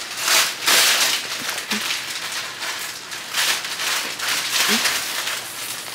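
A package being opened by hand: packaging rustling in uneven bursts, the loudest about half a second in and again past the middle.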